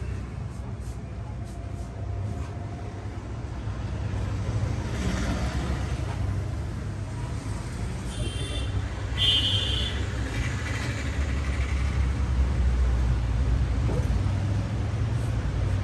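Road traffic outside, a steady low rumble of passing vehicles, with two brief high tones about eight and nine seconds in.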